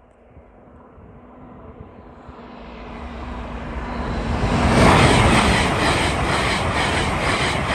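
LNER Azuma high-speed train approaching and passing at speed. Its rush grows steadily louder and is loudest about five seconds in as the front reaches the crossing. After that a steady rushing carries on, with a fast, even beat of wheels over the rails as the carriages go by.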